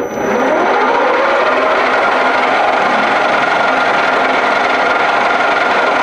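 Metal lathe started up: motor and headstock spinning up with a rising whine over the first second, then running steadily at speed.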